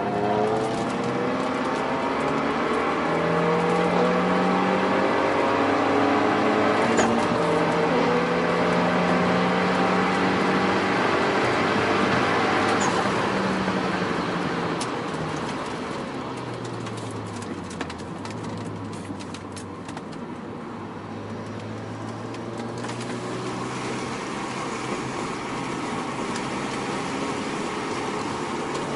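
Renault Mégane RS 225's turbocharged 2.0-litre four-cylinder engine, breathing through a Milltek downpipe and cat-back exhaust, running hard with its note climbing and holding. About halfway through it falls to a lower, quieter steady note.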